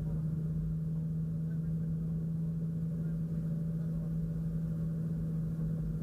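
BMW E36 328i's straight-six engine running at steady revs under way, heard inside the cabin as one held engine note over low road rumble.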